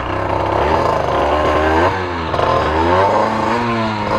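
50cc two-stroke dirt bike engine revving up and down several times, the pitch rising and falling in repeated sweeps, as a rider works the bike through deep mud.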